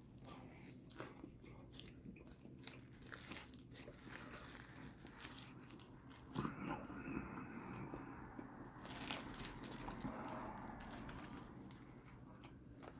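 A person quietly biting and chewing a chicken torta sandwich close to the microphone, with faint soft crunches and small mouth clicks.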